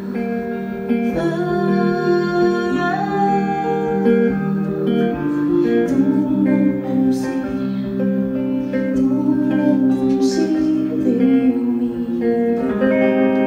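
Live song: a woman singing over a clean electric guitar, with long held notes.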